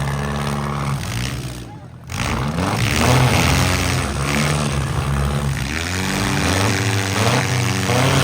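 Several demolition derby cars' engines revving and running hard at once, their pitches rising and falling against each other, with a brief dip about two seconds in.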